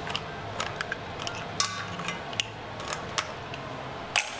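Light, scattered clinks and taps of metal utensils, pots and bowls being handled, with one louder knock near the end, over a low steady hum.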